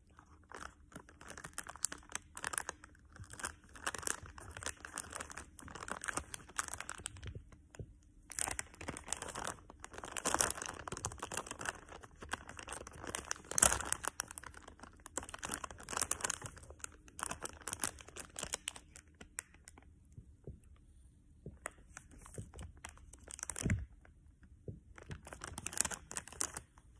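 Plastic gummy candy wrapper crinkling and tearing in irregular bursts as it is handled, with a short lull about three quarters through and then a single dull thump.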